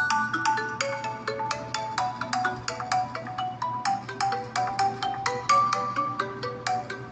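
Samsung phone ringtone playing a quick melody of short, bright struck notes, about three or four a second.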